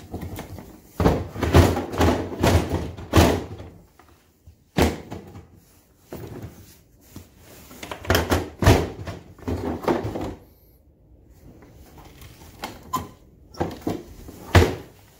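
Ryobi LINK hard plastic tool boxes clunking and knocking together as a box is lifted, set down and pushed onto the stack without latching. The knocks come in several clusters with a short lull about two-thirds of the way through, and the sharpest knock comes near the end.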